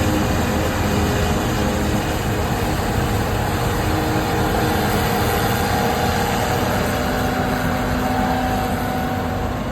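Diesel farm machinery engines running steadily, with a slight rise and fall in engine pitch.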